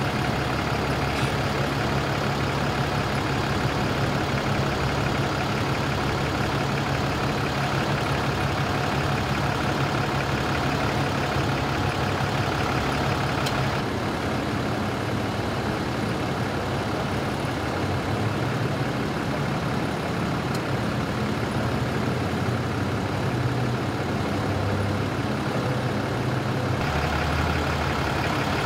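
A heavy vehicle's engine idling steadily, a low even hum. Its pitch and level shift slightly about halfway through and again near the end.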